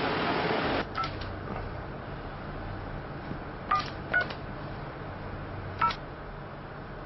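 Telephone keypad being dialled: about five short touch-tone beeps, each with a key click, at uneven gaps over a low hum. A steady hiss cuts off suddenly just before the first beep.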